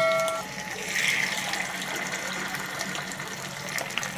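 Marinated fish steaks sizzling and crackling as they shallow-fry in hot oil in a frying pan. A ringing chime fades out at the very start.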